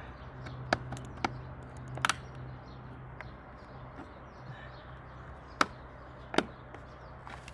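Plastic clips of a carbon-fibre side-mirror cap snapping and tapping against the BMW 440i's mirror housing as the cap is pressed into place: about six sharp, separate clicks spread over several seconds.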